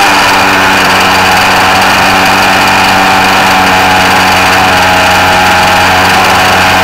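RC car's motor running at a steady speed with an even, unchanging pitch.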